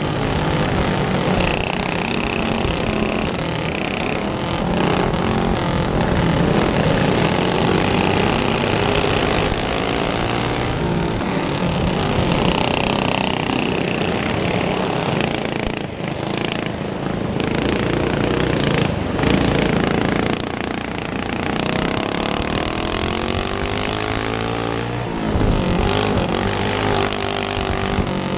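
Single-cylinder clone go-kart engine at racing speed, heard onboard. Its pitch climbs and falls again and again as it revs up and backs off around the dirt oval.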